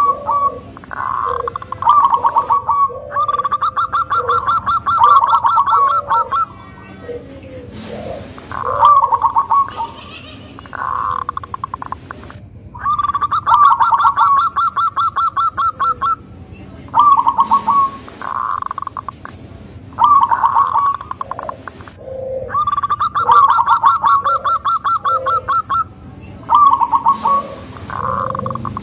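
Local-strain zebra dove (perkutut) singing its thick, rhythmic song: groups of short coos around a long rolling trill, the cycle repeating about every ten seconds, three times.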